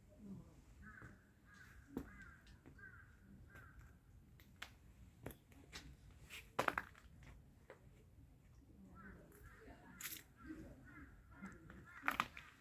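A bird calling in runs of short repeated calls, with scattered sharp clicks and knocks.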